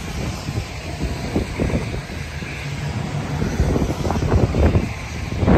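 Diesel freight locomotive running as it pulls a train of freight cars slowly through the yard, a low rumble with wind buffeting the microphone in gusts.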